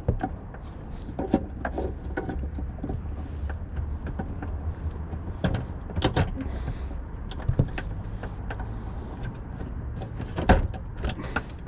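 Scattered small clicks and knocks as an LED fog light bulb is handled and pushed into its socket, over a steady low hum. The loudest knock comes near the end.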